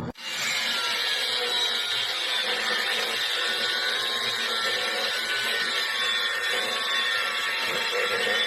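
A power tool, most likely an angle grinder, running steadily as it cuts into an iron pipe to free a trapped puppy.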